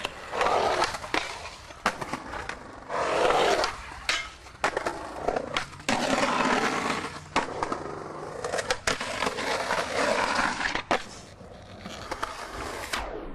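Skateboard wheels rolling on concrete, broken by sharp wooden clacks of tail pops and landings, with a longer rough stretch of the board grinding along a concrete ledge about six seconds in.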